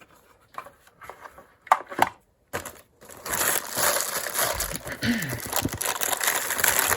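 A couple of sharp knocks as hard plastic items are handled, then, about three seconds in, steady crinkling and rustling of plastic packaging being handled.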